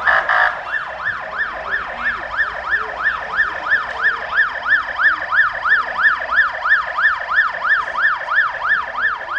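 Ambulance siren sounding a fast up-and-down yelp, about three and a half sweeps a second, with a short burst of noise right at the start.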